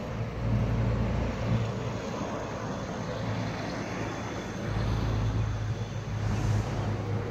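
Low, steady rumble of vehicle engines and road traffic, swelling a little twice.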